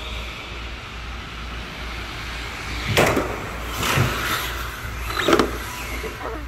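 Electric RC cars running over a steady low hum, with three louder surges of motor noise about a second apart, the last the loudest.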